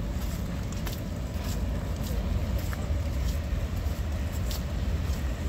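Rainy street ambience: a steady low rumble of city traffic, with scattered light taps of raindrops on the wet pavement.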